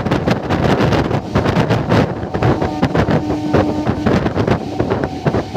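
Wind buffeting the microphone held outside a MEMU electric train running at speed, over the rumble and clatter of its wheels on the track. Faint steady tones come in about halfway through.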